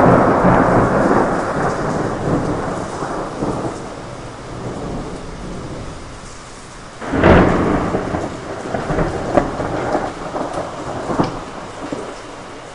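Heavy rain with thunder: a loud rumble of thunder fades over several seconds, then a second sharp thunderclap about seven seconds in crackles and rumbles away, with steady rain beneath throughout.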